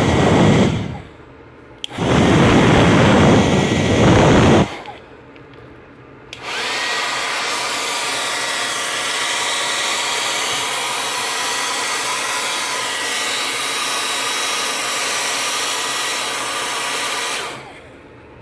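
Hair dryer blowing: two short loud bursts, then switched on again for a steady run of about eleven seconds with a faint whine in the airflow, winding down near the end.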